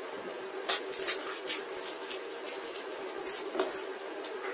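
Crisp puchka (pani puri) shells being cracked open by hand and crunched while eating: a string of short, dry crackles and clicks over a steady low hum.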